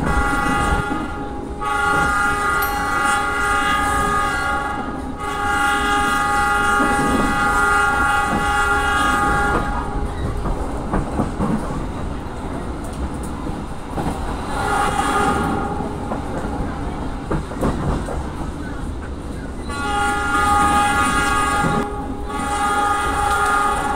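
Diesel locomotive air horn sounding a series of long blasts, the longest about five seconds, over the rumble and clickety-clack of the moving train.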